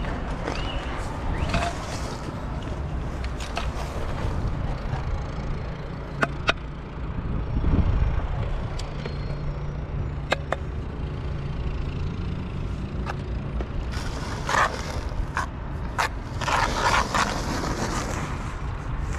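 Steady low rumble, with two sharp clicks in the middle and two short bursts of scraping near the end.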